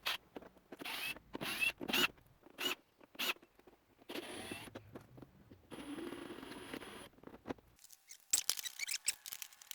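Plastic ride-on toy body being taken apart by hand: a run of short clicks and knocks, two stretches of scraping in the middle, then more clicks near the end.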